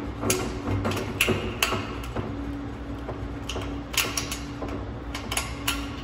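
Straight-cut aviation snips cutting into light-gauge steel stud track: a series of sharp metallic snips at irregular intervals, with a steady low hum underneath.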